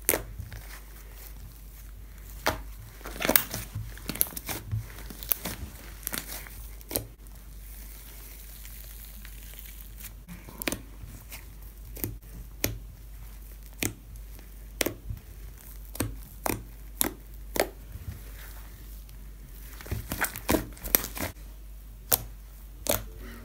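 Fingers poking and squeezing a thick, fluffy butter slime made from tissues, giving scattered sharp pops and clicks at irregular intervals over a faint steady low hum.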